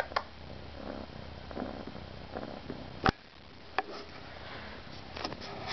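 Kitten purring close to the microphone, a steady low rumble. About three seconds in there is one sharp knock against the camera as the kitten noses it, after which the purring is fainter, with a few small clicks and rustles near the end.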